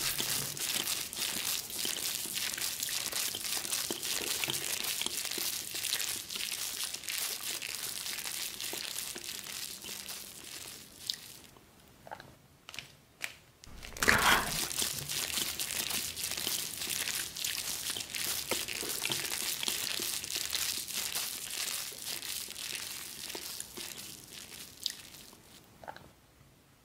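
Plastic instant-noodle wrapper and foil sauce sachet crinkling and rustling as they are handled and squeezed. The crinkling drops away for a couple of seconds about halfway, with a few light clicks, then starts again and fades near the end.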